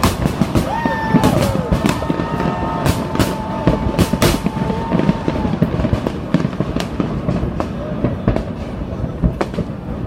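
Fireworks exploding in a dense, irregular barrage of bangs and crackles. A steady high whistling tone runs through the first half, over a rumbling background.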